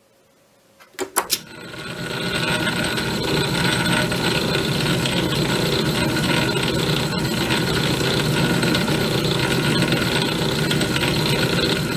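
Atlas 618 six-inch lathe switched on with a couple of clicks about a second in, its motor coming up to speed and then running steadily through the back gear at its slowest spindle speed, about 54 RPM, geared for cutting threads.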